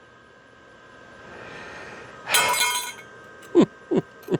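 Loose sheet-metal pieces clattering in a short loud burst about two seconds in, followed by three quick, sharp metallic pops near the end.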